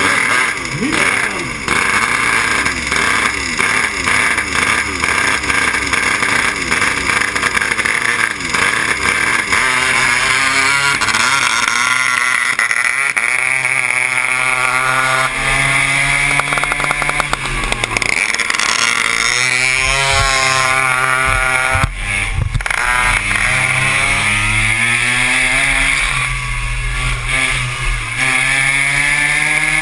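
Small two-stroke pocket-bike engine of a motorised beer-crate racer, heard close up from on board, revving high and dropping back again and again as it accelerates and slows through tight tyre chicanes. In the first seconds several engines rev together at the start.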